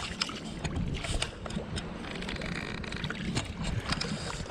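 Bare feet wading through ankle-deep water, making a run of small irregular splashes.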